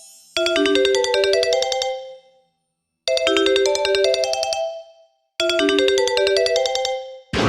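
Synthesized MIDI rendition of the Sony Xperia ringtone: a short phrase of bright, stacked chime-like notes played three times with brief silences between. Just before the end a dense, noisy wall of notes cuts in.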